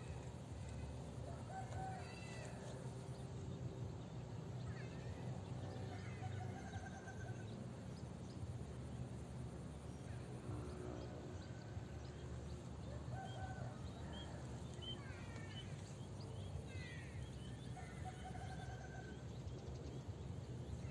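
Birds chirping and calling in short, repeated phrases over a steady low rumble.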